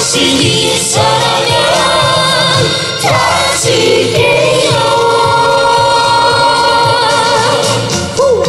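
Live trot song over a backing track with a steady beat, the vocal group singing long held harmony notes.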